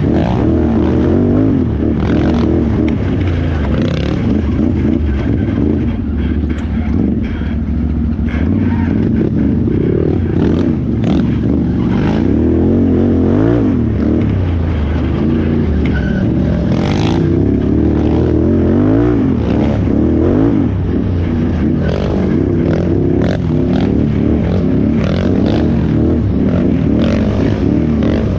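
Can-Am Renegade XXC 1000R ATV's V-twin engine revving up and down continuously under race riding, with frequent short knocks and clatter from the machine.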